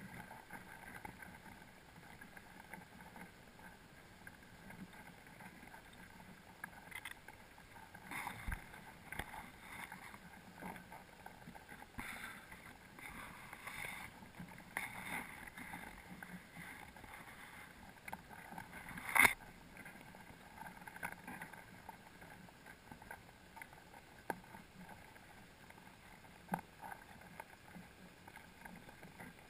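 Muffled underwater noise inside a crab pot on the sea floor, heard through a sealed camera housing: a faint steady hiss with scattered clicks and knocks, and one sharper knock about two-thirds of the way through.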